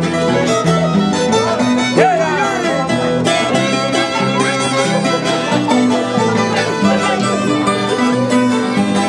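Violin and Andean harp playing an instrumental folk tune: the violin carries a bowed melody over the harp's plucked bass notes.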